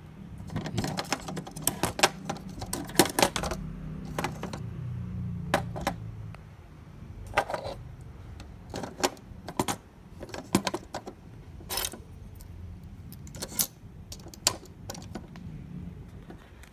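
Irregular clicks, taps and plastic clatter from handling a printer scanner carriage and its small DC motor as the motor is taken out and fitted, with a low hum underneath.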